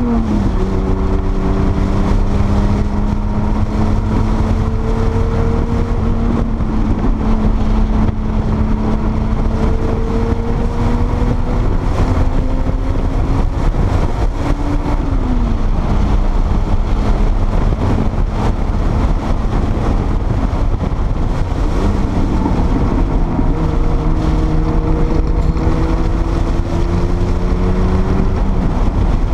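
Porsche 930 Turbo's air-cooled turbocharged flat-six running hard at speed on track, its note climbing slowly for long stretches and dropping or jumping in pitch a few times, over a heavy, steady rumble of wind and road noise.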